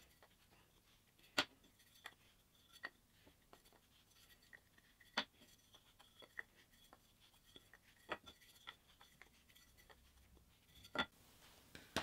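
Faint scratching of a wheel marking gauge scoring lines into pine boards. A few sharp clicks and light knocks come every few seconds as the gauge and boards are handled on the bench.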